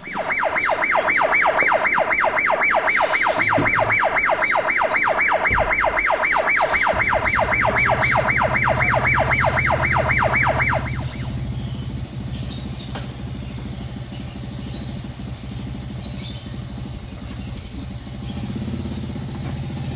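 An electronic siren-like warble, rising and falling rapidly and evenly, starts sharply and cuts off suddenly after about eleven seconds. A steady low hum comes in about seven seconds in and carries on.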